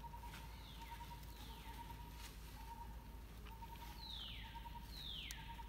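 Four short animal calls, each sliding steeply down from a high pitch; the last two are louder. Under them runs a steady, pulsing high tone.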